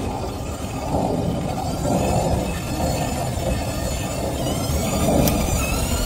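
Lego Technic motor and gear train running a spinning washing-machine mechanism, a steady rumble and rattle of plastic parts. A high whine grows stronger near the end as it speeds up into a fast spin.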